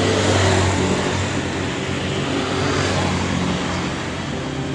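Road traffic: a motor vehicle passing close by. Its engine and tyre noise are loudest at the start and fade away.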